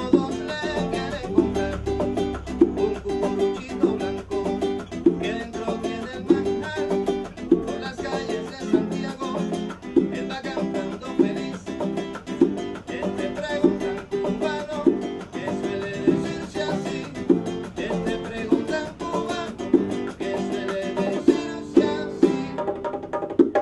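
Acoustic guitar strummed in a steady Cuban-style rhythm, with regular accented strokes.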